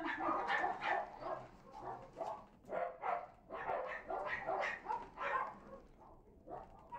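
Dog barking and yipping in quick repeated calls, two or three a second, thinning out near the end.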